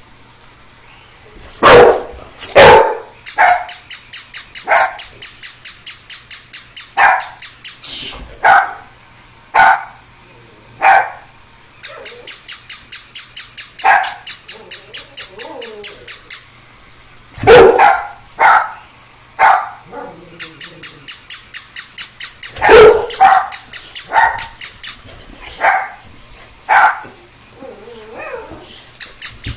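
A dog barking repeatedly in loud single barks, often a second or so apart, at a small battery-operated toy puppy. Between the barks the toy gives a fast, even run of high-pitched yaps, about five a second, in several stretches.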